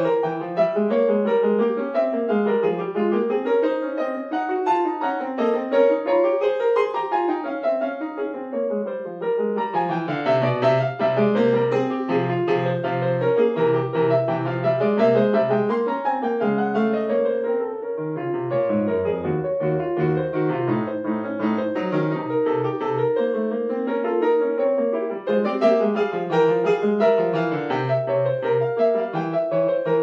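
Yamaha grand piano played solo: quick runs of notes that rise and fall, with repeated low bass notes through the middle.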